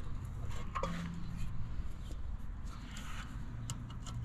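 Faint clicks and handling noises of hand tools working at a seized sensor, over a low steady hum.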